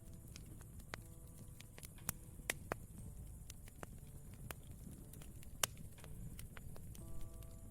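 Campfire crackling: sharp pops and snaps at irregular moments over a low, steady rumble of burning wood. Soft piano notes come in near the end.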